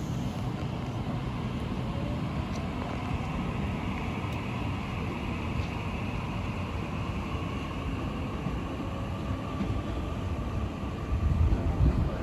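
Electric suburban train running at the station platform: a steady rumble with a faint whine that slowly falls in pitch, and a louder low rumble just before the end.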